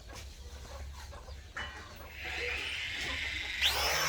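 SM-1705W camera drone's propeller motors spinning up for takeoff. A faint whine starts about halfway and rises, then jumps sharply higher and louder near the end.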